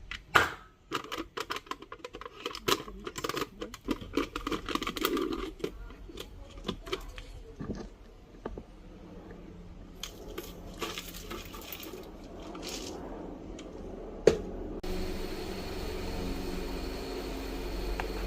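Small household objects being handled: a quick run of clicks, taps and rustling, then sparser clatter and one sharp click. After that a steady low hum with a faint high whine sets in.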